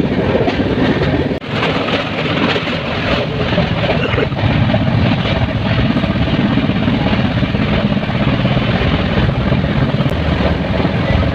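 Moving train running with a steady, loud rumbling noise.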